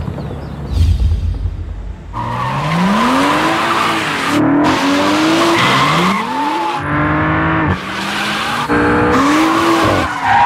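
BMW M235i's turbocharged 3.0-litre straight-six accelerating hard, its note rising in pitch and dropping at each upshift several times over, with tyres squealing, all broken by abrupt cuts. Music with a low throb comes first, for about two seconds.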